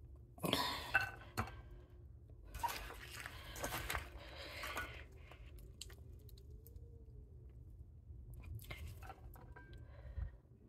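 Wet, crunchy squishing of salted, chopped snake gourd pieces squeezed by hand in a stainless steel bowl to press out their water, in three short spells.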